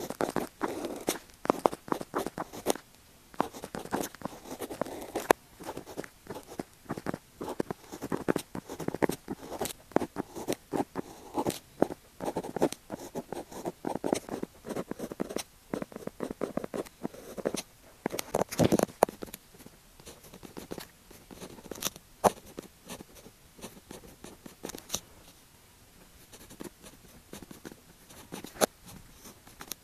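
Pen writing on paper: quick scratching strokes in irregular runs, thinning out and growing fainter over the last few seconds.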